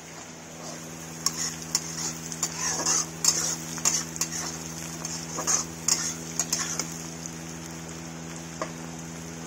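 Metal spatula scraping and stirring onions and greens frying in oil in a metal kadai, over a steady sizzle. The scraping stops about two-thirds of the way through, leaving the sizzle and a steady low hum.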